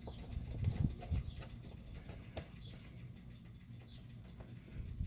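Faint clicks and taps of hands pushing a screw into a plastic bumper clip, with scattered handling noise.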